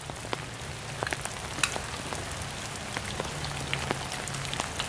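Steady rain falling on leaves and wet ground, with scattered sharp ticks of individual drops.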